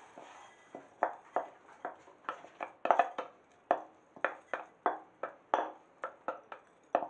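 Wooden spoon tapping and scraping against an upturned bowl, knocking out seasoned rice: a string of irregular sharp taps, about three a second.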